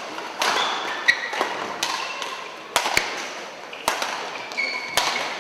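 Badminton rally: sharp cracks of rackets striking the shuttlecock about once a second, mixed with players' shoes squeaking and thudding on the court floor, each hit ringing briefly in a large sports hall.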